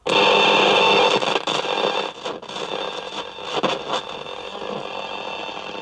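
Static hiss from an old Sanyo M2420 radio cassette's radio, coming in suddenly and loudly, then settling lower, with a few crackles as a knob on top is worked. The owner puts the crackles down to worn switches and knobs.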